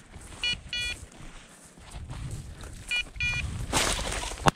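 A bird dog's electronic beeper collar beeping in quick pairs, two pairs about two and a half seconds apart, over the crunch of footsteps. Near the end comes a brief rush of noise, then a single sharp shotgun shot at a flushed pheasant.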